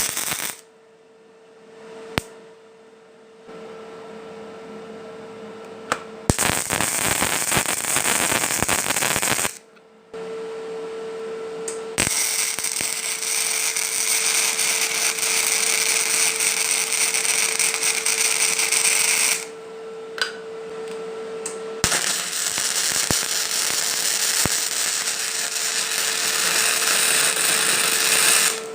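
Workshop power tools working steel in several stretches that start and stop abruptly, over a steady hum.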